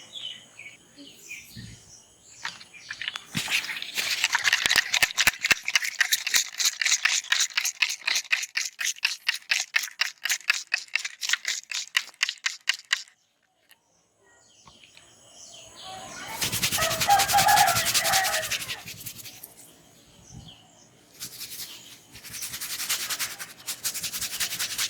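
Head massage: hands rubbing fast over hair and scalp in even strokes, about four a second, then after a short pause more bursts of rubbing. Birds chirp faintly at the start.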